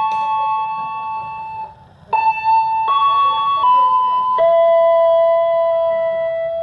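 Background music of sustained keyboard-like notes that change in steps, cutting out briefly about two seconds in.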